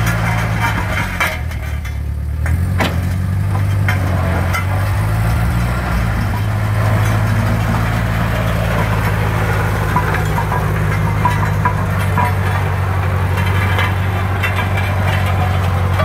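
Engine of a vintage Wallis & Steevens motor road roller running steadily as the roller drives slowly, with a low, even engine note. It is running nicely on a new carburettor.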